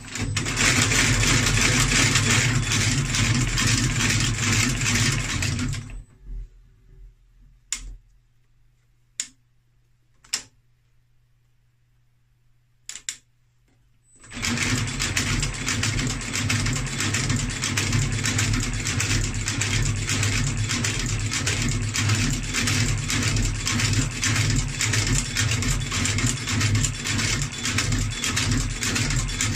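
Outsole stitching machine running, sewing a leather sole on with a fast, even stitching rhythm. It stops about six seconds in, leaving a few short clicks and knocks, and starts up again about halfway through and keeps running.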